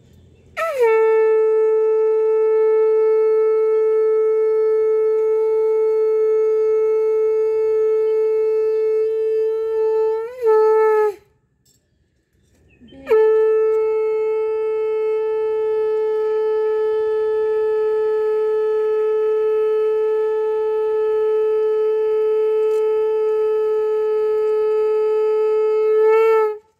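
Conch shell (shankh) blown in two long, steady blasts: the first lasts about ten seconds, the second about thirteen, and each ends with a brief wobble up in pitch.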